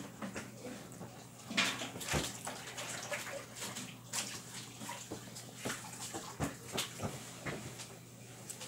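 Table noise of people eating: scattered light clicks, knocks and rustles over a steady low hum.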